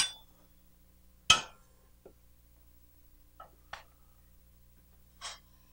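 Scattered clinks of a cooking utensil against a pan and glass bowl: one sharp ringing clink about a second in, then a few fainter taps.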